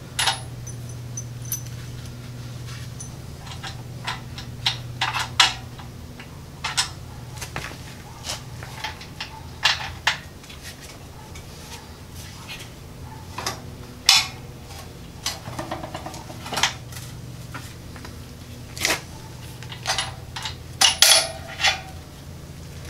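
Bolts and hand tools clinking and knocking against the steel engine mounting plate and frame as an engine is bolted down: irregular metallic clinks with a few sharper clanks, over a steady low hum.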